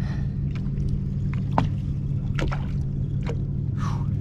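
Steady low hum with water lapping and slapping against a bass boat's hull in irregular short knocks, and a brief splash near the end.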